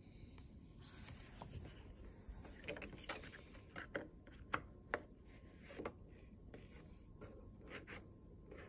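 Rubbing and light clicks of a plastic cutting mat being slid into place against the rollers of a Cricut cutting machine, with two sharper clicks about halfway through.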